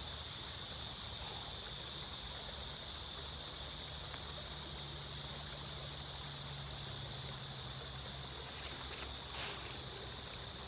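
A steady, high-pitched insect drone with no break, with a faint low hum beneath it and a single short knock near the end.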